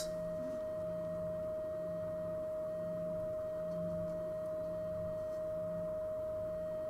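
Steady 625 Hz sine tone from a loudspeaker driven by a function generator, sounding into a perspex tube closed at one end, tuned so that the tube resonates with a standing wave.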